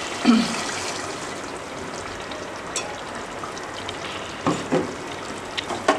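Chicken curry sizzling steadily in a metal pot while it is stirred with a ladle, cashew-coconut paste having just gone in. There are a few light knocks of the ladle against the pot in the second half.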